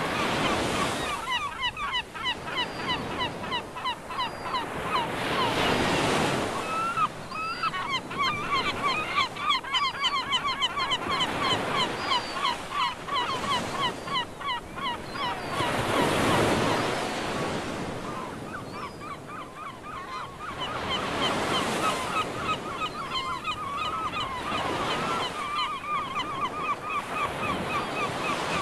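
A flock of birds calling continuously, many short repeated calls at several pitches overlapping one another. A rushing noise swells up and fades several times underneath.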